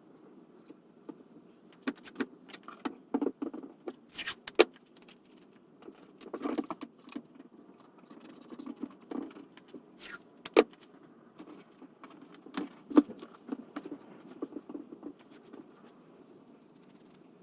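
Irregular clicks, knocks and short rustles of wooden workpieces being handled at the bench, over a low steady hum. The sharpest knocks come about a third of the way in, just past halfway, and about three quarters of the way through.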